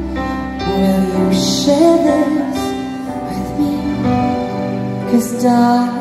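A woman singing a slow pop ballad live into a microphone, drawing out long, wavering notes over steady instrumental accompaniment.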